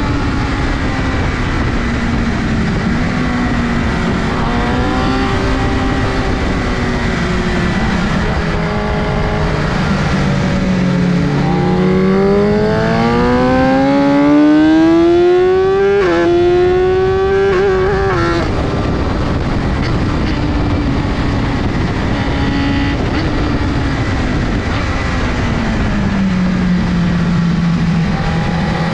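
BMW S1000RR inline-four engine heard onboard at track speed over constant wind rush. Midway its note climbs in a long pull, dips briefly at a gear change and climbs again, then cuts back sharply; near the end the pitch falls away as the bike slows.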